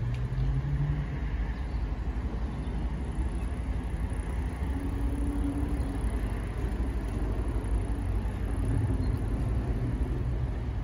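Steady low engine rumble, with a faint hum that shifts in pitch a few times.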